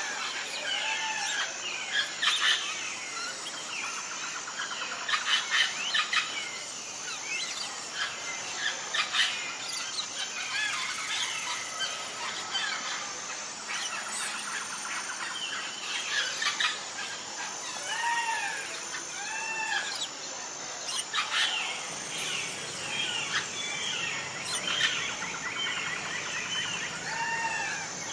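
Several birds chirping and calling at once, with short arching call notes repeated every second or two over a busy mix of chirps and trills.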